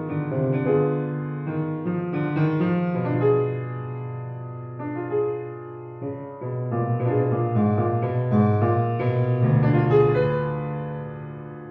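Solo piano playing a slow, classical-style passage, with low bass notes held under changing chords and melody notes.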